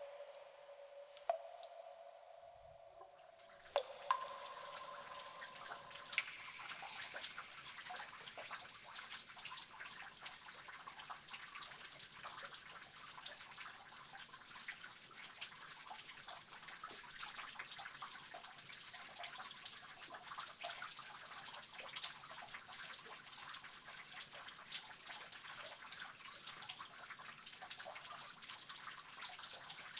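Water dripping in a cave. A few ringing, pitched plinks sound in the first seconds. About three seconds in, a steady trickle with many quick drips starts and runs on.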